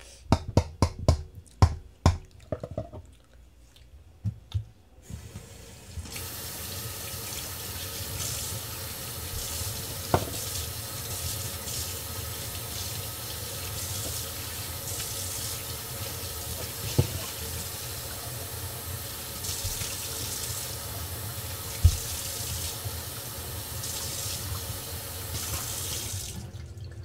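Tap water running steadily into a sink, rinsing watery green slime away, and stopping suddenly near the end. Before the water starts there are a few sharp knocks and clicks.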